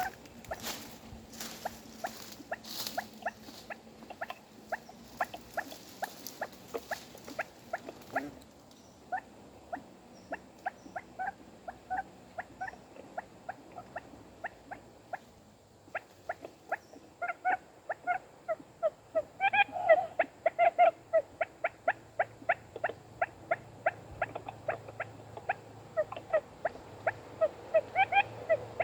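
Quail calling: a long run of short, quick chirping notes repeated a few times a second, pausing briefly midway and then coming louder and thicker. Rustling noise runs under the first part.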